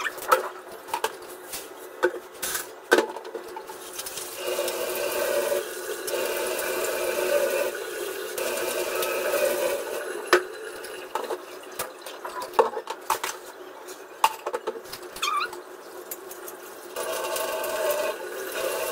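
Dishes and utensils clinking and clattering as they are washed, with tap water running for several seconds at a time: once from about a quarter of the way in to about halfway, and again near the end.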